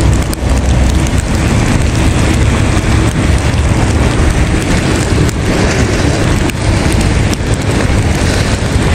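Loud, continuous wind buffeting on the microphone, with a steady rain-like hiss, while riding a bicycle through falling snow.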